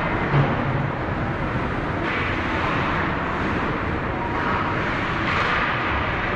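Ice hockey rink noise during a game: a steady rush of noise with swelling hiss, and a short low thud about half a second in.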